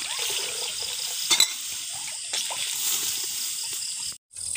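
Portable butane camping stove burning under a cooking pot with a steady hiss, with a couple of sharp knocks about a second and a half in.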